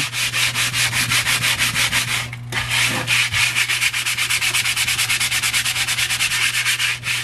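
Folded 80-grit sandpaper rubbed by hand in quick, even back-and-forth strokes over a wooden cutting board, scraping off the old varnish, with a short pause about two and a half seconds in.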